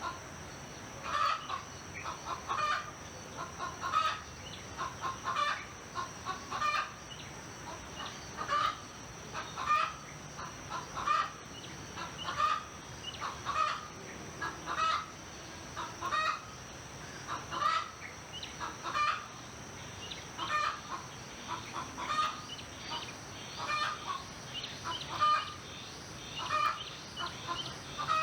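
Chickens clucking in short calls repeated about every second and a quarter, over a steady high-pitched hum.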